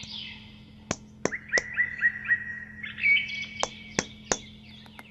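Birds chirping: a quick run of short falling chirps, about three a second, with sharp clicks in two clusters, about a second in and again near the end.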